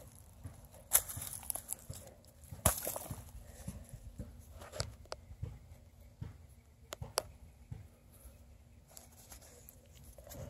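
Hand scraping and digging at dry dirt and twigs: irregular crunching and crackling with sharp snaps, the loudest about one second and nearly three seconds in.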